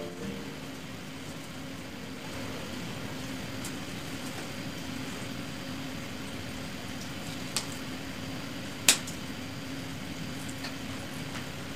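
Steady low room hum, with two sharp snips about a second apart past the middle, the second louder: pruning shears cutting twigs on a sisir (Cudrania cochinchinensis) bonsai.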